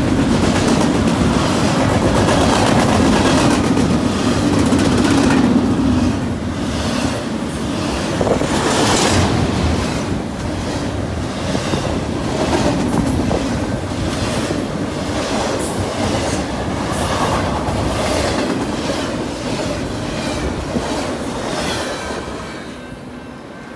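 Double-stack intermodal freight cars rolling past close by, the steel wheels clicking over rail joints in a steady clickety-clack. The noise drops away near the end as the last car passes.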